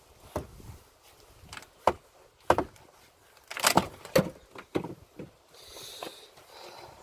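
Wooden boards knocking and clattering: a string of irregular sharp knocks, then a short scraping rasp about six seconds in.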